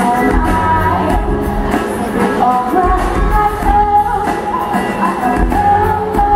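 Female lead singer singing a pop song live into a microphone over an amplified band with a steady bass beat, holding long notes.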